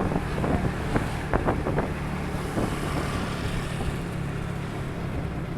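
A vehicle engine running steadily on the move, with wind buffeting the microphone, and a few short clicks a little over a second in.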